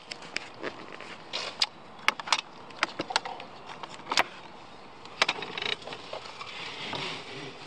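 Press-and-pull latches of a Pelican Elite 30-quart hard cooler being popped open and the lid lifted: a series of sharp plastic clicks and knocks, then a brief rustle near the end.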